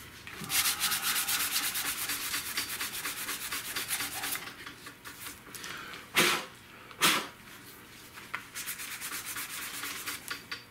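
800-grit sandpaper rubbed back and forth by hand over a super-glue and baking-soda filled crack in a vinyl dash pad, a rapid scratchy rasping that smooths down the cured filler. Two brief louder noises break in near the middle, about a second apart, before the sanding goes on more quietly.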